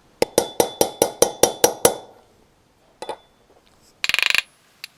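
Hammer tapping a new wheel bearing into a quad bike's front hub: a quick run of about nine sharp metallic taps, about five a second, each with a brief ring, then a single knock and a short rapid rattle of light taps near the end.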